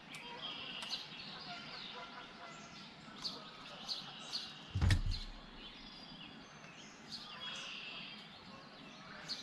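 Wild birds chirping, short high calls repeated again and again. One dull thump about halfway through.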